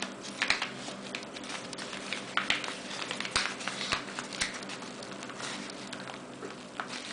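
Padded paper mailer being torn open by hand: irregular paper rustling and crackling, with a few sharper ticks as the corner is ripped.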